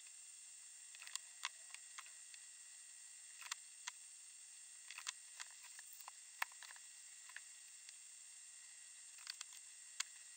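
Faint steady hiss with a scattered handful of small, sharp clicks and taps from handling the wired capacitor bank and its parts.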